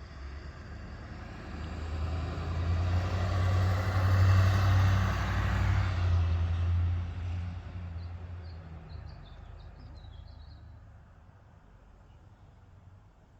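A motor vehicle passing by: its engine hum and road noise build up, peak a few seconds in, then fade away. Small birds chirp faintly near the end.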